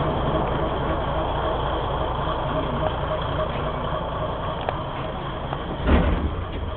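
Diesel engine of Kominato Railway railcar KiHa 203 idling steadily, heard from inside the passenger cabin. A short low thump comes about six seconds in.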